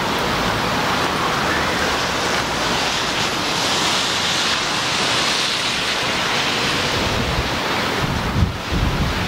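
Steady wind noise rushing over the microphone, with low buffeting gusts near the end.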